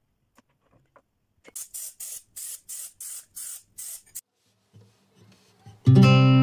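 A rapid series of short hissing sprays, about seven in a row at roughly three a second, fits cooking spray being squirted onto a metal muffin tin. Near the end, guitar music starts loudly.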